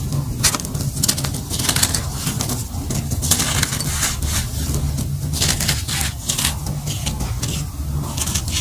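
Hands squeezing and crumbling dry gray clumps and sifting the powder through the fingers: a quick run of gritty crunches and crackles with a hiss of falling grains, over a steady low rumble.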